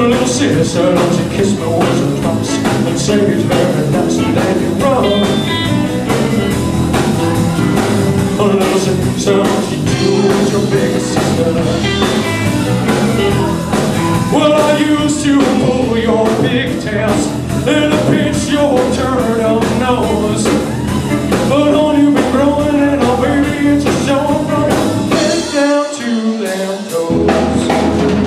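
Live four-piece band playing: a male singer over electric guitar, electric bass and a drum kit. Near the end the bass and kick drum drop out for about a second, then come back.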